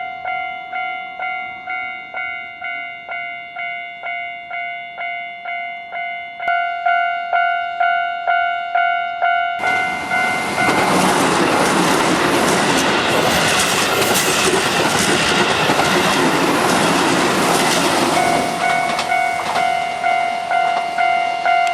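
Level-crossing warning bell ringing in quick repeated strokes, about three a second, which get louder about six seconds in. A Keihan 8000 series limited express then passes at speed for about nine seconds, its wheels clicking over the rail joints and drowning out the bell, which rings on after the train has gone.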